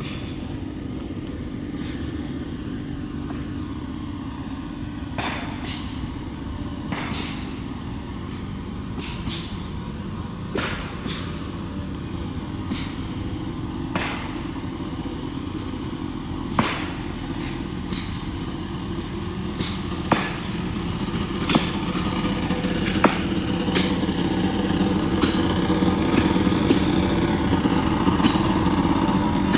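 Noise from the railway tracks: a steady engine-like drone with irregular sharp knocks every second or two, growing a little louder toward the end.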